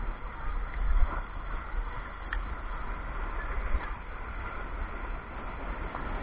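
Rough surf washing against the shore, with wind buffeting the microphone in gusts.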